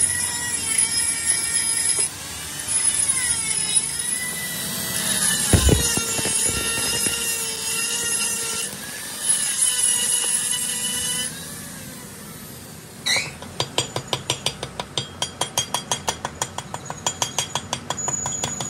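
Stick arc welding on a steel truck drive-shaft yoke: the welding arc crackles and hisses in long runs, with brief breaks. After a short lull it is followed by a fast series of hammer blows, several a second, on a steel chisel against the yoke.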